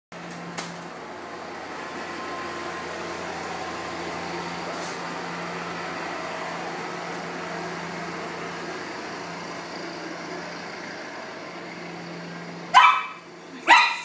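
A pug barks twice, two loud sharp barks about a second apart near the end, over a steady low mechanical hum that runs until the barks.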